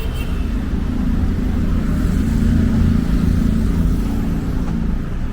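Steady low rumble of a motor or vehicle engine, with a hum that grows a little louder in the middle and eases off again.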